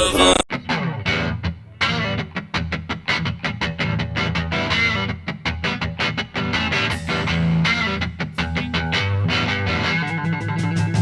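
Background music: a track with distorted electric guitar over a steady beat, cutting in abruptly about half a second in.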